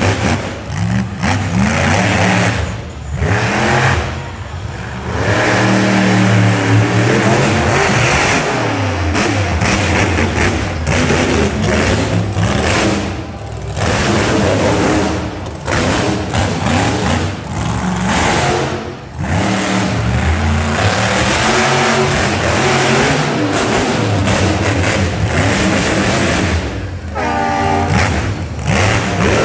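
Monster truck engine revving hard again and again during a freestyle run, the pitch climbing and falling as the throttle is opened and lifted.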